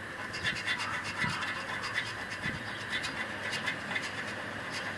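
A coin scraping the silver latex coating off a paper scratch-card lottery ticket in quick, repeated short strokes.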